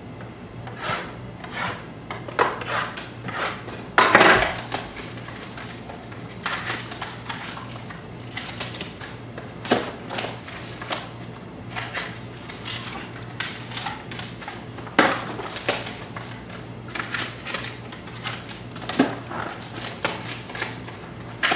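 Trading card packs being opened and handled: irregular short crinkles, rustles and taps of wrappers and card stock, over a steady low hum.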